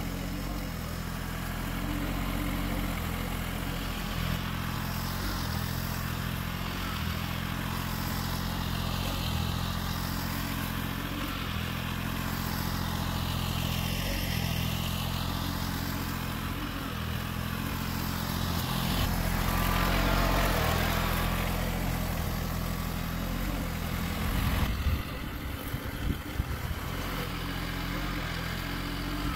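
John Deere garden tractor's engine running steadily as the tractor drives under the willows, with a hiss that swells about two-thirds of the way in and an uneven, choppier stretch near the end.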